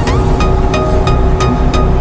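Music with a steady beat, about three beats a second.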